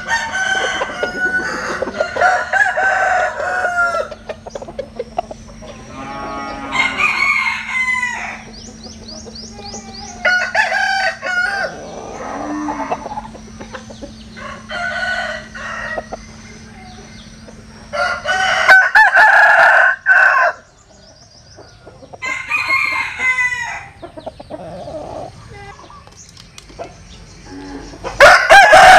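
Roosters crowing one after another every few seconds, each crow a long call of a second or two, some loud and close, others fainter. A faint steady hum runs underneath and stops about two-thirds of the way in.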